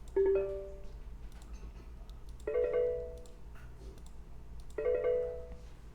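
A Windows system sound chime played three times, a short pitched ding that fades out each time, the first lower in pitch than the other two; faint mouse clicks in between.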